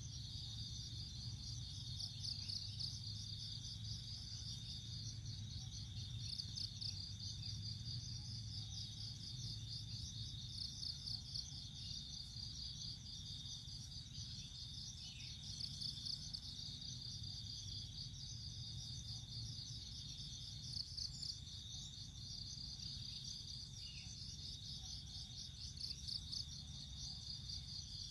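Chorus of singing insects: high-pitched trills made of rapid pulses, running continuously, with a faint low hum underneath.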